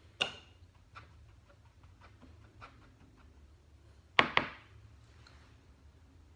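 Makeup cases and brushes being handled and set down: a sharp click just after the start, a couple of faint taps, and a louder double click about four seconds in.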